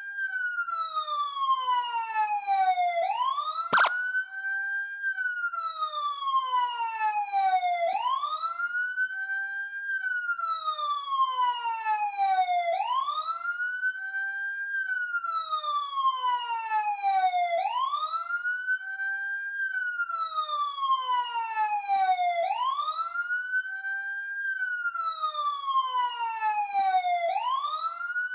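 Police siren in wail mode: a tone that rises quickly, holds briefly, then falls slowly, repeating about every five seconds, six times in all. A single sharp click sounds about four seconds in.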